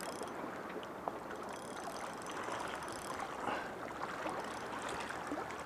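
Steady wash of small waves at the shoreline, with a few faint clicks.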